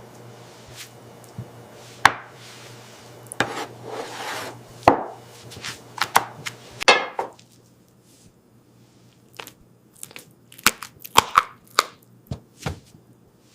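Kitchen work sounds: irregular knife chops and knocks on a cutting board, with some clatter of utensils and dishes. The knocks come in uneven clusters, and a faint low hum underneath stops a little past halfway.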